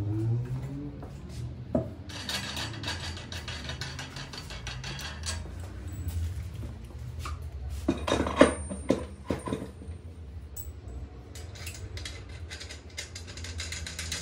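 Metal clinking and knocking as a knobby wheel is handled and fitted onto an ATV's splined rear axle, with a cluster of sharper knocks about eight seconds in.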